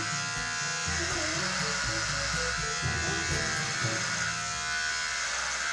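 Background music with a bass line over the steady buzz of electric hair clippers.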